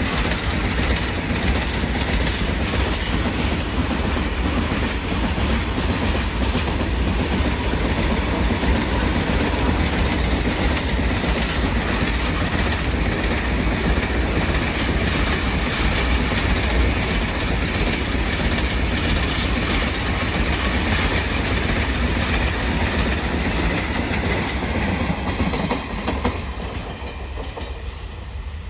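Indian Railways goods train of open-top freight wagons passing close at speed: a steady rumble with the clatter of steel wheels over the rail joints. It fades near the end as the last wagons go by.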